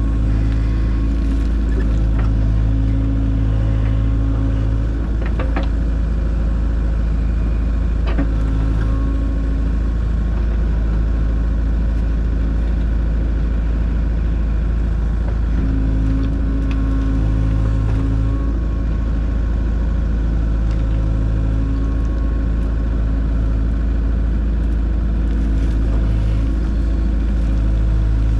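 Diesel engine of a Kubota KX057-4 compact excavator running steadily, its note swelling and easing every few seconds as the hydraulics take load, with a few knocks along the way.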